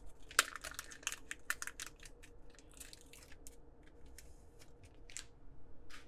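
Foil wrapper of an Upper Deck hockey card pack being torn open and crinkled, a run of sharp crackles in the first second and a half, then softer rustling and another crackle near the end as the cards are slid out.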